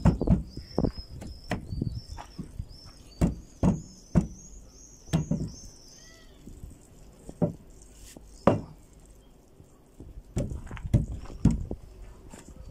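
Hand knocking on a small wooden window frame with glass in it: a dozen or so sharp knocks at uneven intervals, with pauses between groups, as the frame's joints are knocked together.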